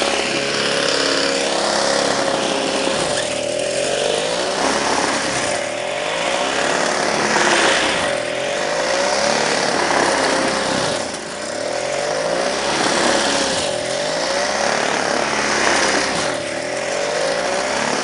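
Gasoline snowblower engine running hard as it clears deep snow, its pitch dipping and recovering every couple of seconds as the load changes, over a steady rushing hiss.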